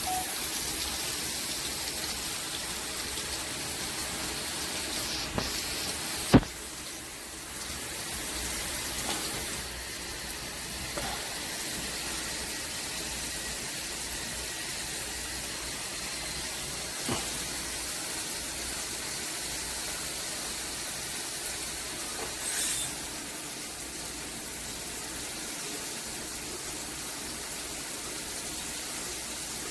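Water spraying steadily from a FASTRAS LED handheld shower head, an even hiss. A single sharp click about six seconds in, and a fainter one later.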